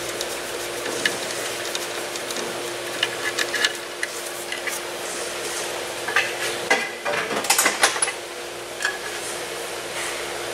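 Scattered metallic clinks and clicks of hand tools and car parts being handled, in small clusters about 3 seconds in and again from about 6 to 8 seconds, over a steady low hum.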